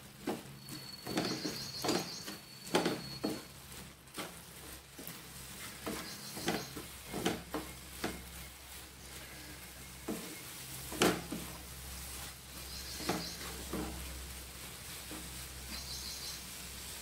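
Wooden spatula stirring and scraping vermicelli around a non-stick frying pan, giving irregular scrapes and taps against the pan, over a light sizzle from the pan.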